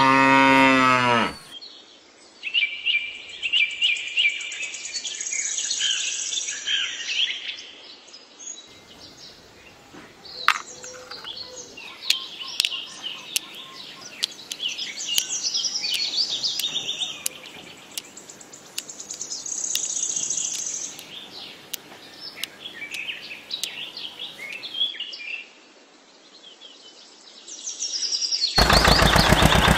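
A cow moos once at the very start, then birds chirp and twitter on and off, with a few sharp clicks. Near the end a tractor engine starts running steadily and loudly.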